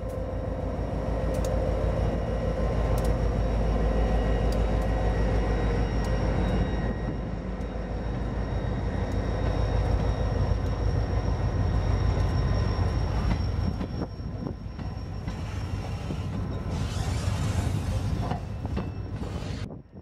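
A New York, Susquehanna & Western diesel locomotive running as it rolls past close by, with sharp wheel clicks, followed by boxcars rolling by in a steady rumble. The sound cuts off abruptly near the end.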